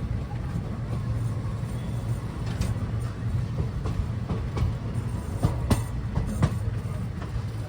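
Train at a railway station running with a steady low hum, and a run of sharp metallic clacks through the middle, the loudest near the end.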